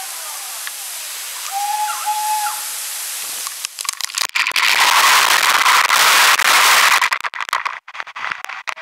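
Waterfall rushing as a steady hiss. About three and a half seconds in, the falling water starts landing right on the microphone: loud crackling and spluttering with short dropouts.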